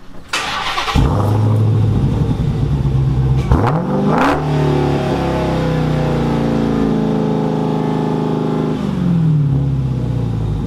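Dodge Challenger SRT Hellcat Redeye's supercharged 6.2-litre Hemi V8 on its factory exhaust, started up: it catches about a second in and runs at a high idle. A quick rev comes about three and a half seconds in, and the idle drops to a lower speed near the end.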